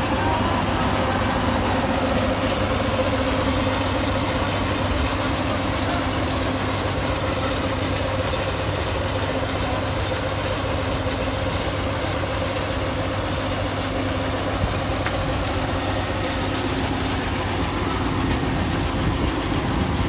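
Combine harvester running steadily with its unloading auger pouring threshed rice grain into a tractor trolley, a continuous engine hum with no change in pitch.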